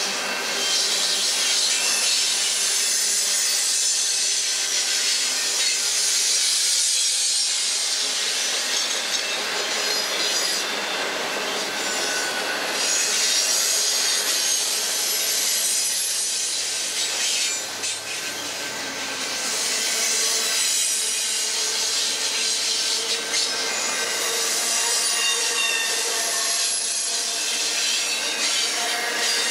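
Double-stack intermodal freight cars rolling past on steel wheels and rail: a steady, loud rush with high-pitched wheel squeal running through it.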